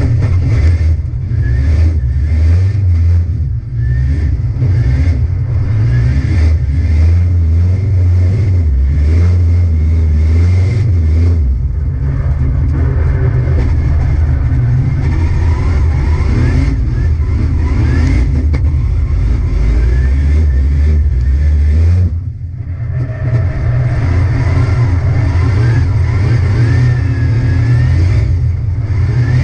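Drift car's engine running at high revs, heard from inside the stripped, roll-caged cabin, with its pitch rising and falling as the driver works the throttle while the tyres spin and smoke. The engine note drops briefly about 22 seconds in before picking up again.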